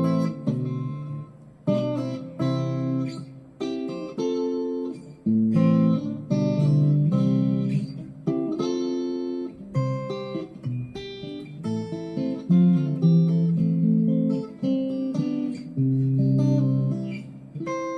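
GEARIT GST 100 Strat-copy electric guitar played on the middle and bridge pickups together, with the bridge humbucker split to single coil. A run of strummed chords and picked notes, each ringing briefly before the next.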